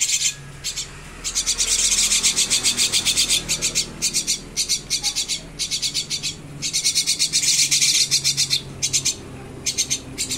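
Fledgling birds giving begging calls: a fast, rasping run of high-pitched pulses in several long bouts, each broken off by a short pause.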